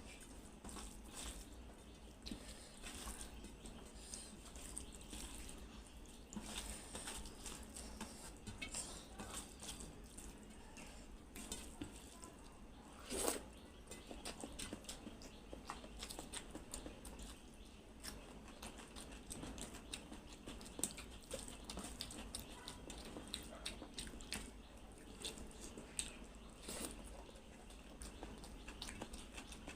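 Close-miked eating sounds: wet chewing and lip smacking over rice and egg curry, with many small clicks and one louder mouth sound about thirteen seconds in.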